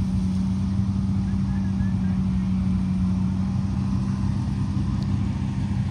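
Combine harvester running steadily while cutting ripe paddy: an even engine drone with one constant low hum.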